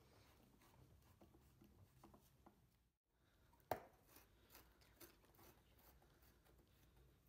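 Faint clicks and scrapes of a small screwdriver driving screws through a woofer's rim into a plastic bucket lid, with one sharper click a little past halfway.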